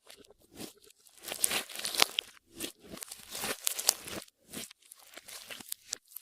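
Clear slime, with makeup and glitter worked into it, being squeezed and stretched by hand. It gives irregular bursts of sticky crackling and popping with short pauses between.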